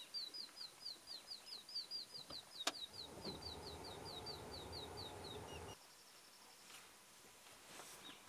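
A bird calling a fast, even run of short, high down-slurred notes, about four or five a second, that stops about five seconds in. A low rumbling noise sits underneath from about three seconds in and cuts off suddenly near six seconds.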